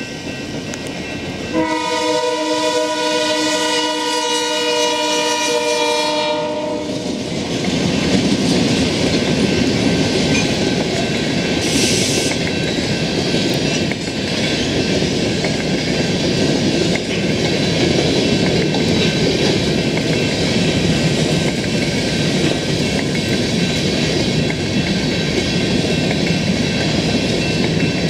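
Freight locomotive's chord air horn sounds from about a second and a half in to about seven seconds. After that comes the steady rumble and clatter of the train's cars rolling past.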